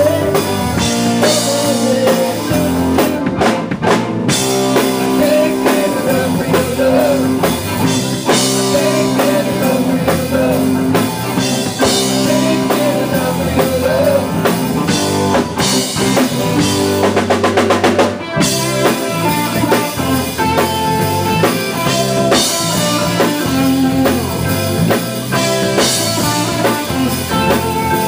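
Background music with a drum kit and guitar.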